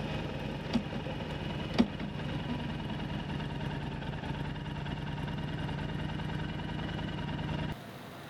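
2012 Honda Fury's 1312 cc V-twin engine idling steadily, with two sharp clicks about one and two seconds in. Near the end the sound drops abruptly to a quieter engine sound.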